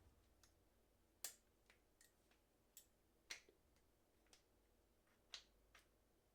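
Near silence with a few faint, sharp clicks spread across a few seconds.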